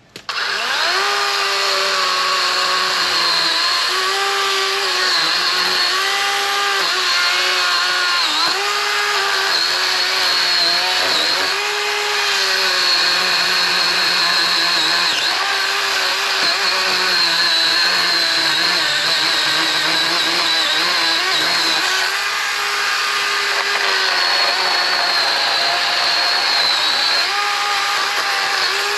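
Electric chainsaw switched on and cutting through a tree trunk. Its motor whine sags in pitch and recovers again and again as the chain bites into the wood.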